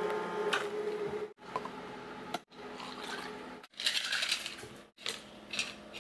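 Espresso machine pump humming steadily while shots pull, stopping about a second and a half in. Then, over a few short cuts, ice clinks and water is poured from a jug over ice into a plastic cup.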